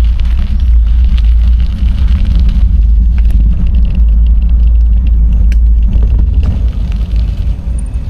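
Loud, steady low rumble of wind and road noise on a bicycle-mounted camera while riding, with scattered light clicks and rattles from the bike.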